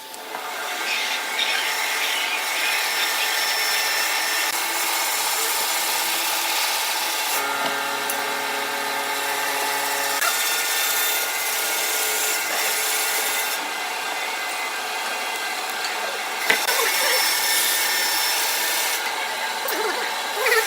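Wood lathe running with a tool cutting and rubbing against the spinning wood: a continuous scraping noise over a steady motor hum, changing in tone a few times as the cut changes.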